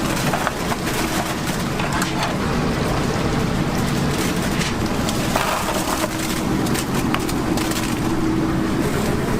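Chicken deep-frying in a large vat of oil: a steady, dense sizzle with scattered crackles and pops.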